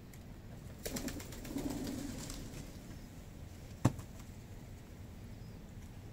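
A bird's wings flapping in a quick run of claps, starting about a second in and lasting about a second and a half, followed a moment later by one sharp knock.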